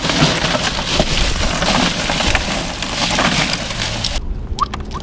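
A plastic bag of ice cubes being crammed into a boat's cooler compartment, the ice and bag crunching and crackling densely. The crackling cuts off abruptly about four seconds in.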